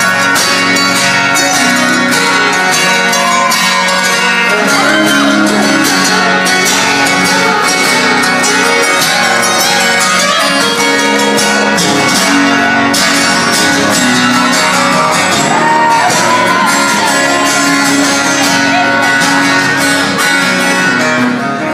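Acoustic guitar strummed live, a steady instrumental stretch with no singing.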